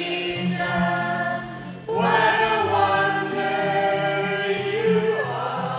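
A group of people singing a song together, holding long notes over steady low accompanying notes, with a short dip just before two seconds in and then fuller singing.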